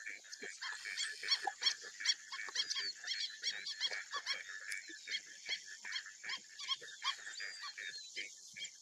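Many short animal calls in quick succession, chirping notes with the odd curling whistle, over a steady high hiss.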